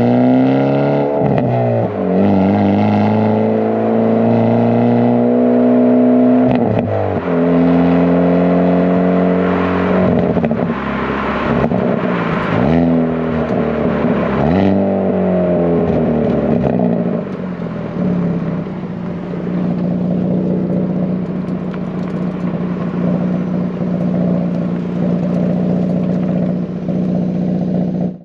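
Hyundai Elantra N's turbocharged 2.0-litre four-cylinder heard at the exhaust tip while stationary. It is held at raised revs, then blipped several times with the pitch rising and falling, with a few sharp cracks as the revs drop. After about 17 seconds it settles to a steady idle.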